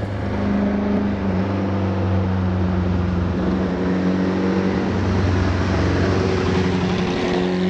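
Kawasaki Ninja motorcycle under way at a steady speed: a steady engine drone over wind and road noise, fading in at the start.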